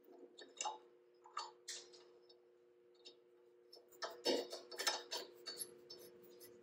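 Hand threading die being turned on an aluminum rod held in a vise: scattered faint clicks and scrapes as the die cuts and metal chips break loose, busiest about four to five seconds in.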